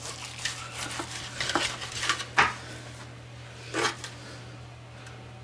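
Carving knife and fork clicking and scraping against a metal baking sheet as a smoked ham is sliced, in a string of small clicks with the loudest about two and a half seconds in and one more near four seconds. A low steady hum runs underneath.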